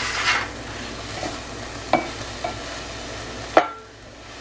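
Diced onion, garlic and celery sizzling in a skillet as a wooden spatula stirs them. There is a steady sizzle with a few sharp knocks of the spatula against the pan, the loudest about three and a half seconds in.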